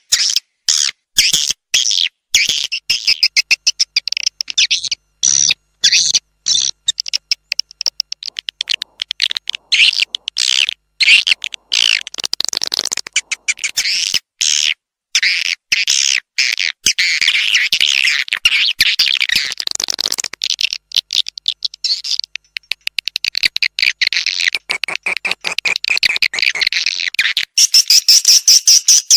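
Swiftlet lure call: dense, rapid twittering and chirping of edible-nest swiftlets, an edited calling track made to draw swiftlets into a swiftlet house. It is full of abrupt cut-outs that chop the chirping into short stuttering bursts.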